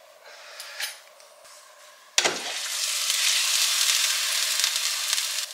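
A salmon fillet, not thawed first, frying in rapeseed oil in a pan. A loud, steady sizzle starts abruptly about two seconds in, after a quiet start.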